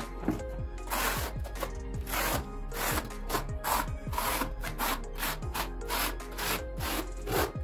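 Steel trowel scraping tile mortar across the back of a ceramic wall tile, spreading it and then combing it into ridges with the notched edge, in repeated rasping strokes about two a second. Music with a beat plays underneath.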